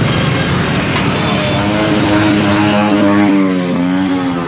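Motorbike engines running in dense street traffic. A steady droning tone comes in about a second in and wavers up and down in pitch toward the end.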